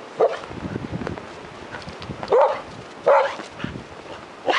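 A dog barking in short, sharp single barks, four times, with pauses of about a second or two between them.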